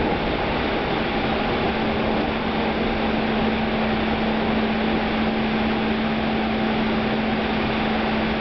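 Inside a moving NS Mat '64 electric stopping train: steady running noise of the wheels on the rails, with a constant hum.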